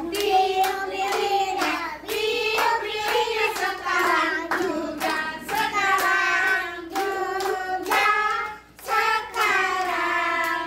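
A group of voices singing a birthday song together to steady hand clapping, about two claps a second, with a short break a bit past eight seconds.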